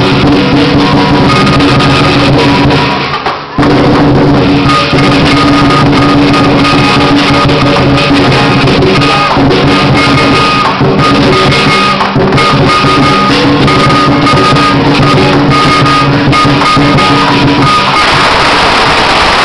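Lion dance percussion band playing loudly: a pounding drum with clashing cymbals and ringing gong. About eighteen seconds in, the ringing gives way to denser noise as the string of firecrackers starts going off.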